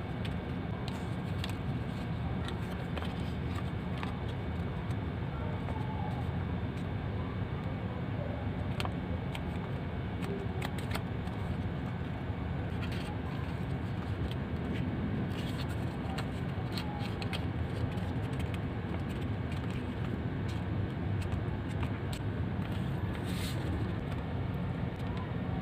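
A sheet of origami paper being handled and folded: scattered soft crackles and crisp creasing clicks, over a steady low hum that is the loudest thing throughout.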